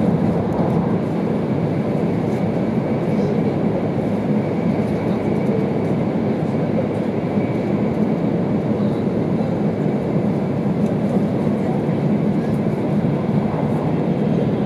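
Steady running noise inside the passenger car of an E2 series Shinkansen travelling at speed: a constant, even rumble with no breaks.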